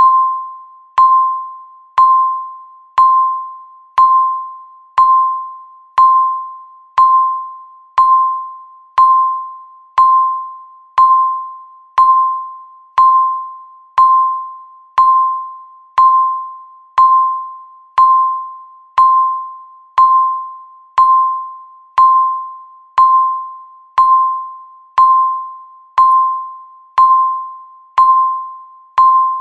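Electronic countdown-timer beep sounding once every second, each beep marking one second counted off. Each is a single clear mid-pitched tone that starts sharply and fades away before the next.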